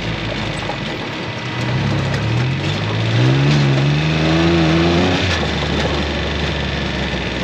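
Vehicle engine running steadily, then rising in pitch as it accelerates from about a second and a half in, and dropping back around five seconds in.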